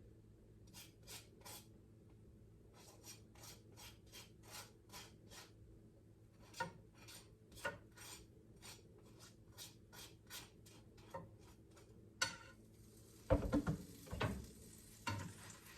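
A knife spreading butter on a pancake in short, soft scraping strokes, about two a second. Near the end the pan starts to sizzle, with a few louder knocks of utensil on pan.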